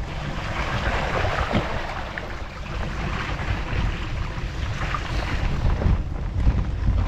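Bicycle tyres rolling and splashing through muddy floodwater on a gravel track, with a steady rumble of wind on the microphone.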